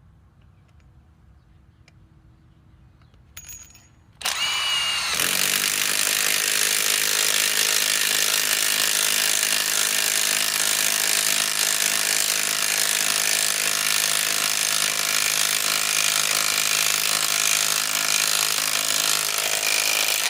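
Bosch mid-torque cordless impact wrench on an 8 Ah 21700-cell battery: a short blip about three seconds in, then the motor spins up and the tool impacts steadily for about fifteen seconds while driving a fastener, stopping suddenly at the end.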